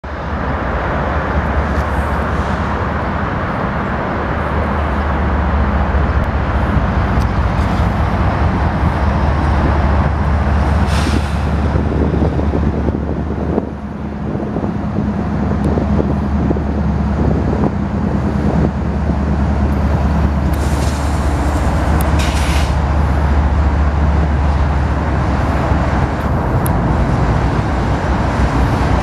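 Union Pacific diesel-electric freight locomotives running with a steady low engine drone as the train rolls into the yard, with a few brief high hisses.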